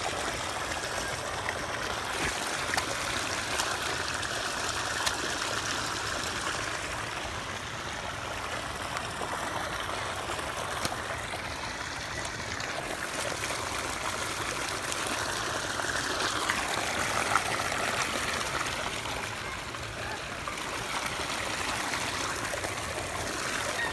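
Steady rush of running water churning and splashing in a sea turtle pool.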